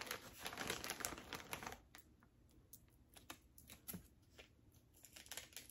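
A chip bag crinkling as it is pushed down into a foam cooler for about the first two seconds, then faint scattered clicks and taps as a small tape dispenser is handled.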